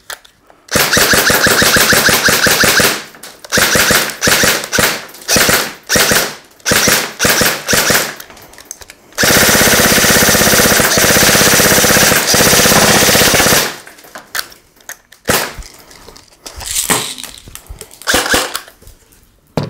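G&G UMG airsoft electric gun, a stock UMP replica with no electronic trigger unit, firing full auto from an 11.1 V LiPo battery: its gearbox cycles in a fast, even rattle. A burst of about two seconds comes first, then a string of short bursts, then one long burst of about four and a half seconds. Softer clicks and knocks follow near the end.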